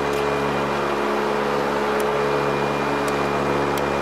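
Steady drone of the Ilyushin Il-18's four turboprop engines and propellers heard in the cockpit in cruise: a constant low, many-toned hum over a rushing background, with a few faint clicks.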